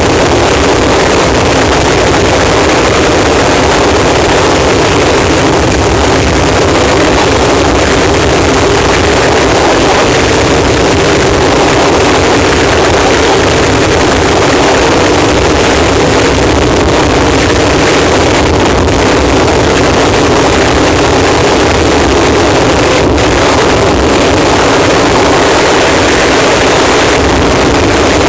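Harsh noise wall: a loud, dense wall of distorted static that holds steady and unchanging, with no rhythm or melody.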